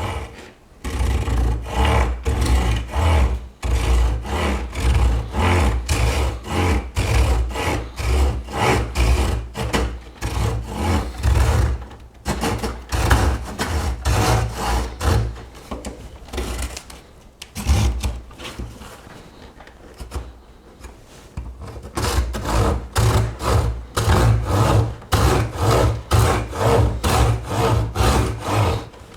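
Small folding saw blade of a Victorinox Soldier Swiss Army knife cutting through a tree branch in back-and-forth strokes, about two a second. The strokes go softer for a few seconds past the middle, then pick up again.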